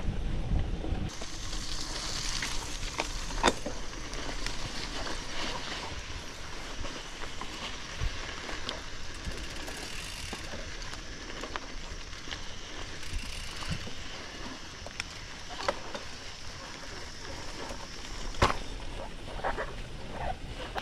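Gravel bike rolling over sand and gravel: a steady rolling hiss from the tyres with sharp knocks and rattles from the bike as it hits bumps. The loudest knocks come about three and a half seconds in and again about eighteen seconds in.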